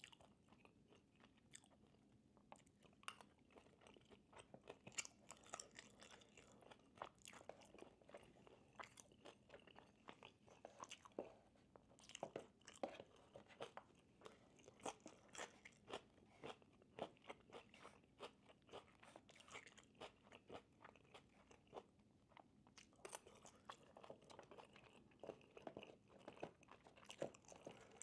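A person chewing and biting food close to the microphone, with many small irregular crunches and mouth clicks and a short lull a little before the end.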